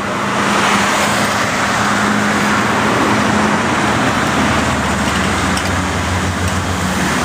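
Steady road traffic noise, with a constant low engine hum under it.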